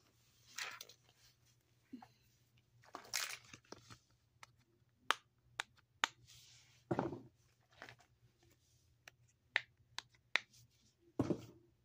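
Fidget toys being handled and set down: scattered sharp clicks and taps, with a few short rustling thuds.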